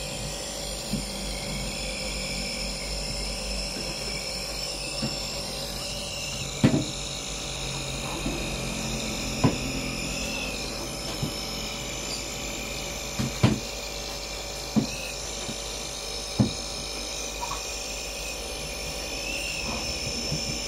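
Compressor nebuliser running steadily, pumping air through the tubing to mist medicine at the mouthpiece: a constant machine hum with a high whine. Several short sharp clicks are scattered through it.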